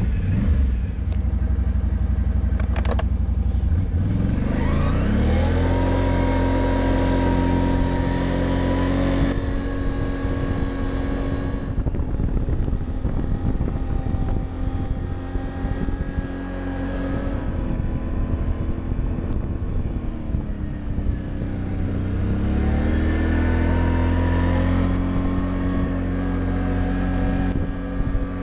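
Can-Am Outlander ATV engine pulling through deep fresh snow. Its pitch climbs a few seconds in and holds steady, sags about two-thirds of the way through, climbs again and holds, then drops off near the end.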